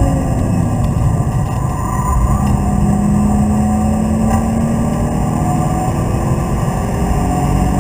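BMW Z3 2.8's straight-six engine pulling under load, heard from inside the cabin, its pitch rising slowly over a few seconds, with road and wind noise underneath.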